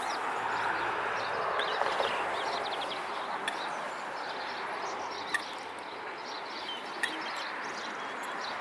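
Wild birds calling by a lake: many short chirps, with two sharp clicks in the second half typical of Eurasian coots, over a steady background hiss.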